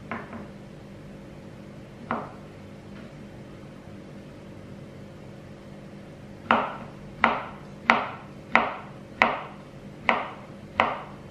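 Chef's knife cutting tempeh into small cubes on a plastic cutting board. A knock at the start and another about two seconds in, then from about six and a half seconds in a steady run of knife strikes on the board, about one and a half a second.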